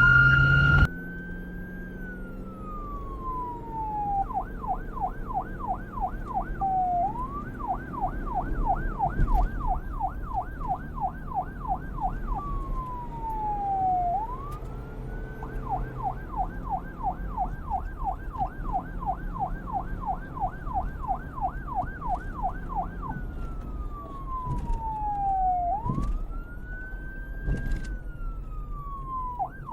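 A police car's electronic siren alternating between a slow wail, rising and falling over a few seconds, and runs of rapid yelp cycles, about four a second. It opens with a loud steady tone that cuts off about a second in.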